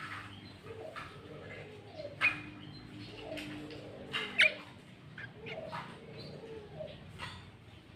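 Sooty-headed bulbul (kutilang) calling in short, sharp notes, the loudest about two seconds in and again near the middle. Underneath runs a low coo repeated about once a second.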